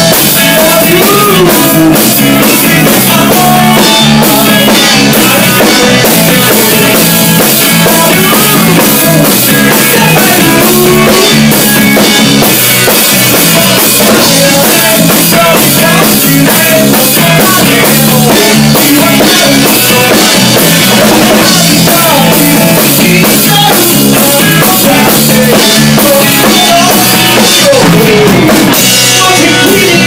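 Live rock band playing loud and steady on a club stage: drum kit, electric guitars and bass, with a singer at the microphone.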